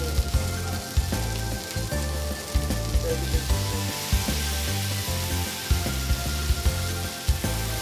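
Whole koral fish (barramundi) sizzling in oil on a hot flat-top griddle. Background music with bass notes plays under it.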